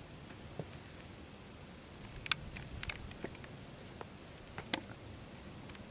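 Quiet outdoor background with a faint, high, on-and-off tone and a few short, light clicks, the clearest about two, three and nearly five seconds in.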